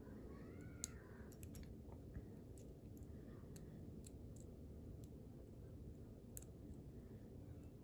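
Faint, irregular clicks of a lock pick working the pins of a five-pin padlock under tension, with pins setting. A low steady background hum runs under the clicks.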